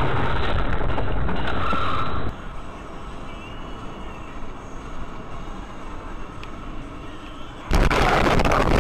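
Dashcam recording inside a moving car: loud road and engine noise, then an abrupt drop to a quieter road hum about two seconds in. Near the end a sudden loud crash, as another car collides with the recording car, and the noise stays loud after it.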